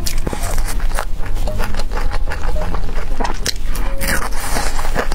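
Crisp fried chicken crust crunching as it is bitten and chewed close to the microphone: a quick run of sharp crunches with no pause.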